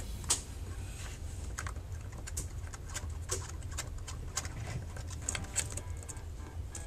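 Small irregular clicks and taps of a precision screwdriver working the tiny LCD screws out of an iPhone 4 and the screws being handled, over a low steady hum.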